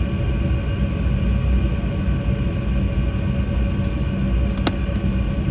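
The GE CF34 turbofans of an Embraer E190 running steadily, heard inside the passenger cabin: a constant low rumble with a steady whine over it. One brief click comes near the end.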